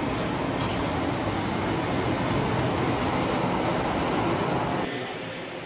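Model trains running on the layout's track, a steady running noise of wheels on rails. It drops away suddenly near the end.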